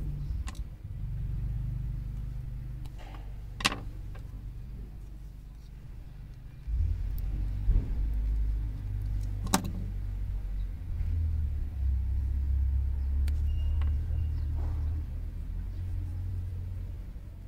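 A low rumble that grows louder about seven seconds in, with a few sharp clicks as stripped copper wire is handled.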